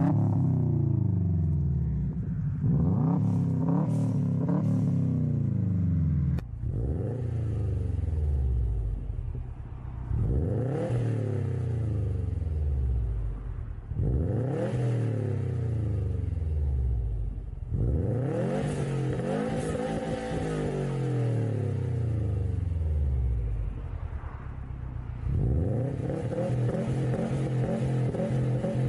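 A 2003 Subaru Impreza's flat-four revving through a large single-tip aftermarket exhaust, with a few quick blips. About six seconds in, a Subaru WRX STI's turbocharged flat-four free-revs at a standstill: about five rises in revs, each falling back toward idle.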